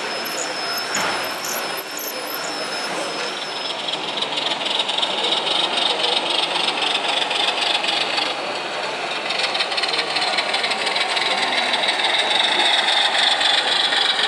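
O-scale model diesel locomotive hauling freight wagons along the track, its running noise and wheel rattle slowly growing louder as it comes closer, with background voices.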